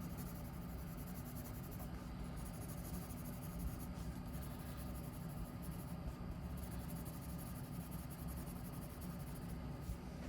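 Soft 6B graphite pencil shading on paper, a steady, continuous rubbing of the lead over the drawing to darken the shadows.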